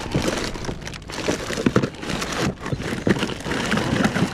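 Hands rummaging through a hard plastic tackle box, crinkling plastic lure packages and clicking items against the case in quick, irregular bursts.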